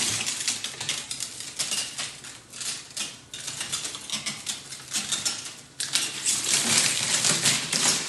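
The plastic shrink-wrap of a six-pack of bottled water crinkling and crackling as the pack is pressed overhead and lowered. It makes a dense run of crackles that come in uneven louder bursts.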